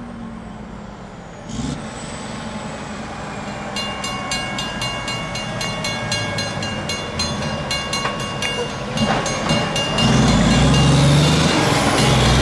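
Mechanical railroad crossing bell starting up about four seconds in as the crossing activates: an electromagnet-driven hammer striking the gong in a rapid, steady series of ringing strokes. From about ten seconds in, a truck's engine comes in loud and low underneath the bell.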